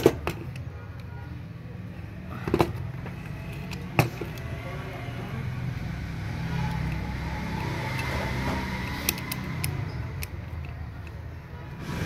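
Sharp handling knocks on a workbench as a multimeter is set down and its probes are put on a phone circuit board, three loud ones in the first four seconds and a lighter click later. Underneath runs a low steady rumble that swells and fades in the middle.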